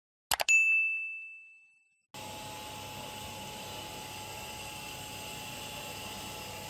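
Two quick mouse clicks, then a single bright bell ding that rings and fades over about a second and a half: the notification-bell sound effect of a subscribe-button animation. From about two seconds in, a steady faint hiss with a light hum.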